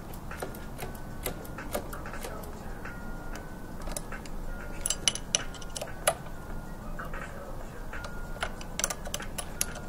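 Irregular light clicks and taps of hand work on a motorcycle brake caliper and lever during brake bleeding, with brief faint squeaks in between.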